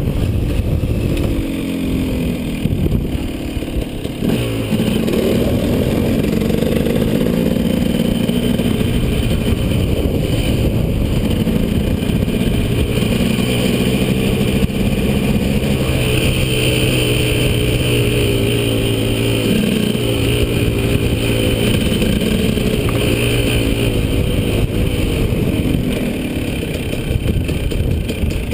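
KTM 250 SX two-stroke single-cylinder dirt bike engine running under way, its pitch rising and falling in steps as the throttle and gears change, with wind rushing over the microphone. The engine drops back near the end as the bike slows.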